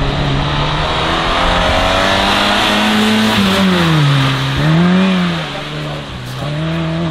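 Volkswagen Golf Mk2's engine revving hard and backing off as the car is thrown through a slalom of cones. The pitch climbs for about three seconds, drops, swings up and briefly down again around five seconds in, then climbs once more near the end.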